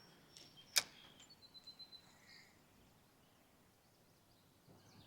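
Fishing reel: a single sharp click about a second in, then a quick run of faint ticks, with small birds chirping in the background.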